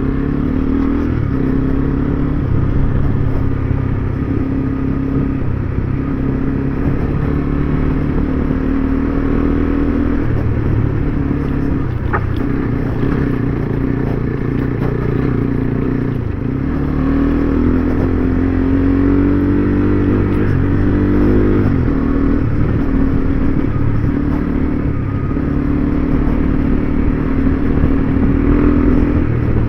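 Single-cylinder adventure motorcycle engine running under way, holding steady for stretches. Its pitch dips about sixteen seconds in, then climbs and falls back at a gear change about twenty-one seconds in.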